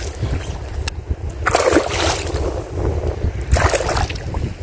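Wind buffeting the microphone in a steady low rumble, with two louder rushes of noise about two seconds apart.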